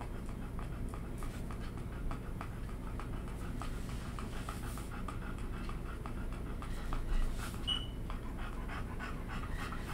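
A dog panting steadily in quick, even breaths, with one brief high squeak about three-quarters of the way through.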